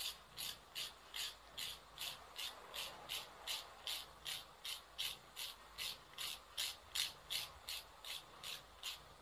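A nail file rasping across nails in quick, even back-and-forth strokes, about three a second, faint.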